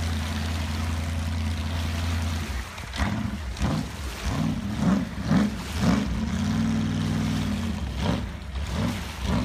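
Supercharged big-block Chevrolet V8 in a jet boat idling steadily, then about two and a half seconds in revving up and down over and over, with a short steady hold near the middle, as the boat pulls away.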